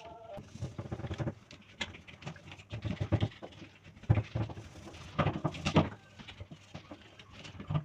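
Dishes and utensils being washed by hand, knocking and clattering against each other and the sink in irregular bunches.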